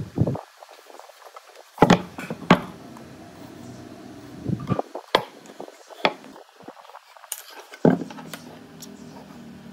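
Workshop clatter of wood and hand tools being handled: about eight sharp knocks at irregular intervals, the loudest two about two seconds in.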